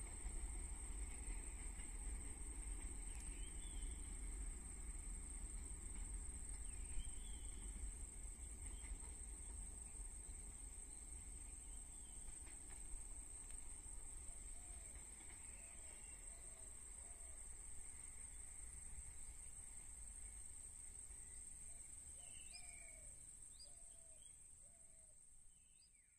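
Countryside ambience: a steady high-pitched insect drone, with scattered bird calls, including a run of short falling notes in the second half, over a low rumble that slowly weakens. The sound fades out at the very end.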